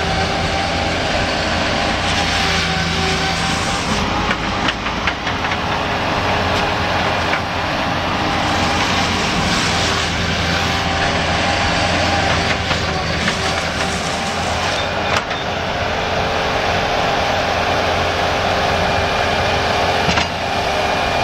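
Bobcat S185 compact skid steer's turbocharged diesel engine running steadily, with a few shifts in its sound along the way.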